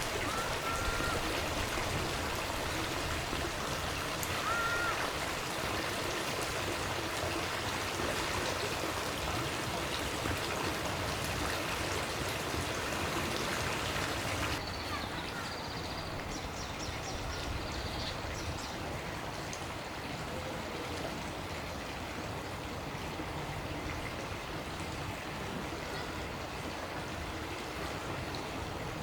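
Steady rush of flowing water, with a few brief, faint bird calls over it. The hiss becomes duller about halfway through.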